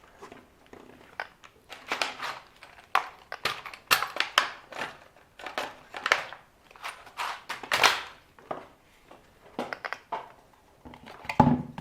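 Irregular clicks, knocks and rattles of hard plastic RC car parts being handled and fitted, with a heavier knock near the end.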